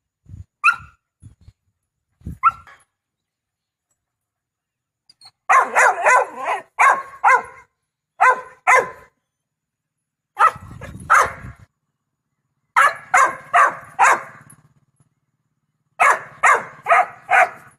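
Four-month-old black Labrador puppy barking in quick bursts of two to six barks, after two short yips in the first few seconds.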